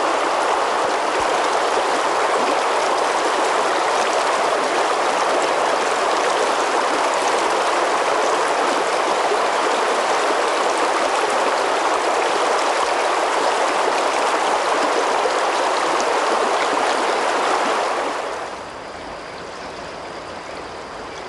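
River water rushing steadily over shallow riffles. About eighteen seconds in, it drops to a quieter, gentler flow.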